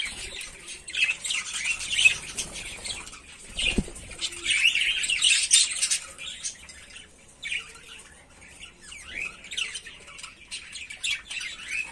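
A flock of budgerigars chirping and warbling, a busy mass of short high overlapping chirps.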